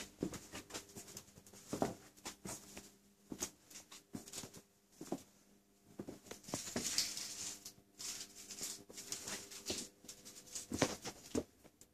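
Quiet shop ambience: scattered soft taps and clicks at irregular intervals over a faint steady hum.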